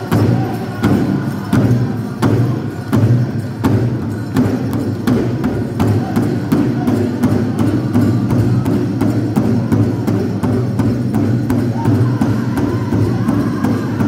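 A pow-wow drum struck together by a group of drummers in a steady beat: loud strokes a little under a second apart at first, settling into a quicker even beat after a few seconds.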